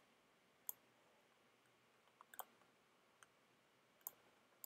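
About half a dozen faint computer mouse clicks at irregular intervals against near silence, two of them close together about two seconds in.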